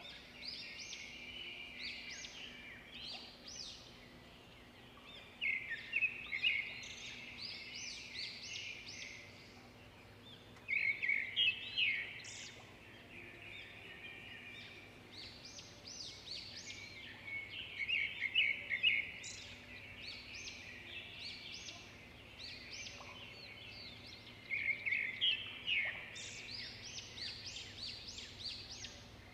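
A small songbird chirping and twittering in phrases of a few seconds, with short pauses between them.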